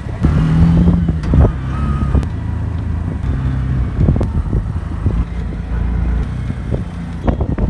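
A motor vehicle running, with a steady low engine rumble and scattered knocks and rattles.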